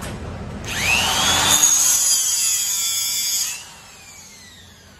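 A handheld power tool spins up with a rising whine about a second in, runs loud for about two and a half seconds, then winds down with a falling whine.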